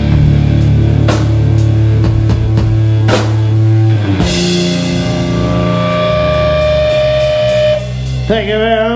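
Punk rock band playing live: distorted electric guitar, bass and drum kit hammering together. About four seconds in, a cymbal crash and the chord is left ringing out steadily for a few seconds, then a wavering high tone comes in near the end.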